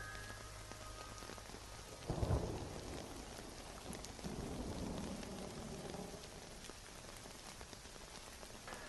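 Steady rain falling, with a sudden low roll of thunder about two seconds in and a softer rumble a couple of seconds later that dies away.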